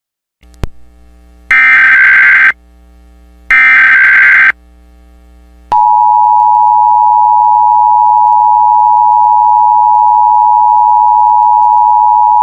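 Emergency Alert System broadcast: two harsh, buzzy digital header bursts about a second long each, then the EAS two-tone attention signal (853 and 960 Hz together) starting about six seconds in and holding steady and loud.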